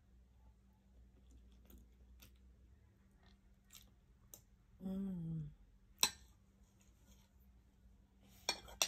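Quiet eating sounds: scattered light clicks and taps of utensils and chewing. A short hummed "mm" falls in pitch about five seconds in, a sharper click follows about a second later, and a few more clicks come near the end.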